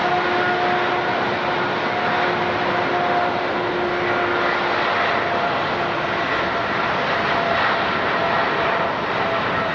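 Airliner engines running: a steady, even rush of noise with a thin, steady whine in it.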